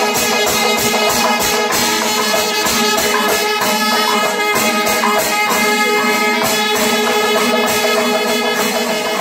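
Kerala panchavadyam temple ensemble playing: dense, rapid drum and cymbal strokes over sustained ringing and horn-like tones.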